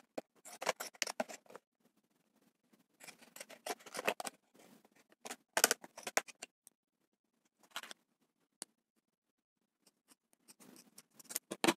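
Scissors cutting thin white plastic from a lid: several runs of short crisp snips with pauses between them, the sharpest cuts about halfway through and near the end.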